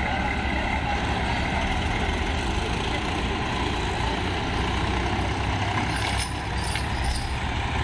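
Swaraj tractor diesel engine running steadily under load, hauling a trailer that had been stuck in deep sand.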